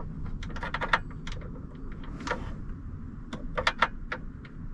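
Light metallic clicks and clinks of a ratchet and sockets as sockets are tried on a bolt: a cluster about half a second in, a single click a little after two seconds, and a quick run of them about three and a half seconds in.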